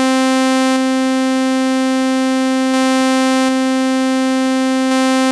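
A synthesized sawtooth wave held on one steady note, hard-clipped by a waveshaper so that some of its brightness is lost. Its level shifts slightly a few times.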